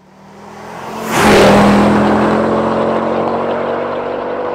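A car engine sound swells to a loud rush about a second in, then holds a steady note while it slowly fades.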